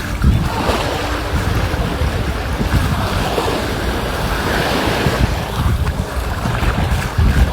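Sea waves washing onto a sandy beach, the hiss swelling and falling a few times, with wind buffeting the microphone in low rumbles.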